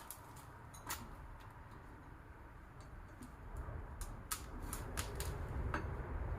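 Irregular light metallic clicks and clinks of hand tools working on a motorcycle engine during teardown, over a low rumble that grows louder about halfway through.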